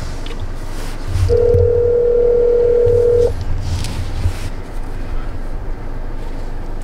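Telephone ringback tone on an outgoing call: one steady two-second ring about a second in, followed by a pause of about four seconds before the next ring. The call is ringing unanswered at the other end.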